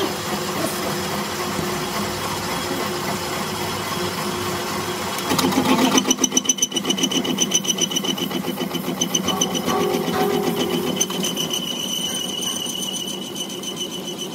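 A metal lathe spinning a flat steel plate, its motor and gearing running steadily. About five seconds in the sound gets louder and becomes a fast, even pulsing with a steady high whine over it, as the boring tool cuts the plate's bore.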